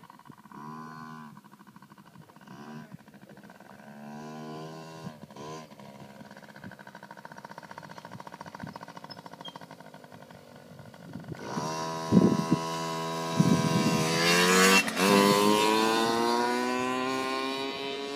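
Mini dirt bike's single-cylinder engine: faint short throttle blips at first, then much louder from about eleven seconds in, its pitch climbing to a peak about fifteen seconds in and then slowly falling as it rides away, with a few sharp knocks around the loudest part.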